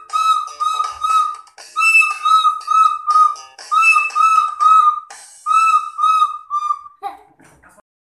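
Child's green plastic recorder blown in short toots on nearly the same shrill high note, in four quick runs of about four or five notes with brief pauses between; it stops a second before the end.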